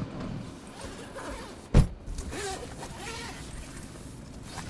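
A single sharp thump about two seconds in, against faint handling sounds inside a car as a package is checked.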